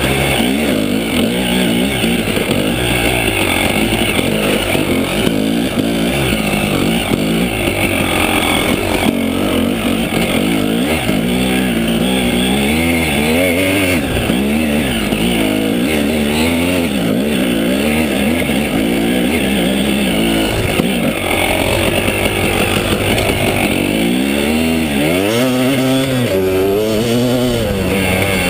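KTM 300 EXC two-stroke single-cylinder enduro engine being ridden hard, its pitch rising and falling again and again as the throttle is worked, heard close from the bike.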